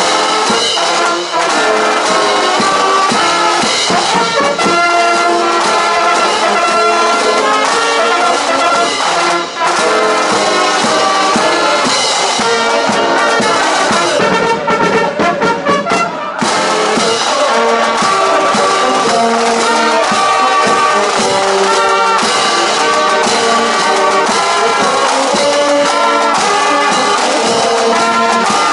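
Brass band playing a march, with trumpets and trombones carrying the tune. The music breaks off for a moment about sixteen seconds in, then carries on.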